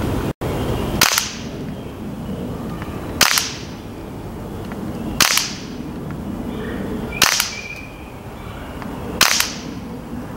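Umarex Steel Strike CO2-powered BB rifle fired five single shots, about two seconds apart, each a sharp crack with a short fading tail.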